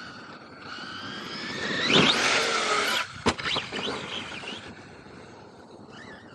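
Electric RC truck's motor and drivetrain whining and rising in pitch as it speeds up, loudest about two seconds in, with one sharp knock a little after three seconds, then fading as it runs off. The driver suspects a bearing going out.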